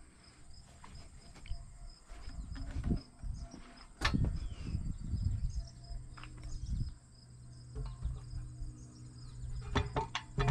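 Scattered knocks and handling noise from a new turned wooden porch post being carried and moved, with a sharp knock about four seconds in and a few quick knocks near the end. Insects call steadily in the background.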